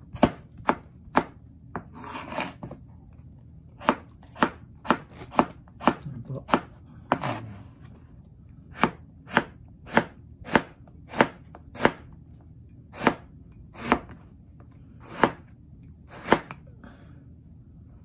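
Kitchen knife chopping peeled eggplant into strips on a plastic cutting board: sharp knocks of the blade hitting the board, roughly one to two a second, with a short break about halfway through.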